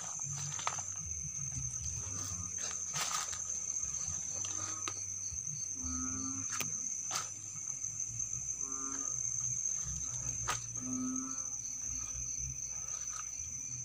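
Night insects trilling steadily on one high note. Over them, a short low animal call repeats every two to three seconds, with a few sharp clicks in between.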